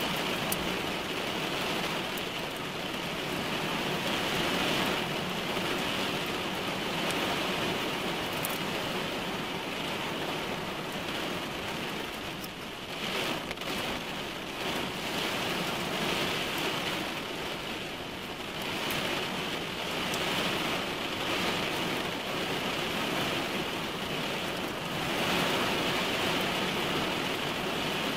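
Rain falling on a car's roof and windshield, heard from inside the cabin: a steady hiss with scattered sharper drop hits on the glass.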